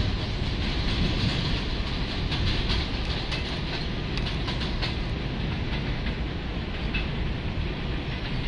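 R62 subway train on the (3) line pulling out of an elevated station, a steady rumble with wheels clicking over rail joints, easing off a little as it moves away.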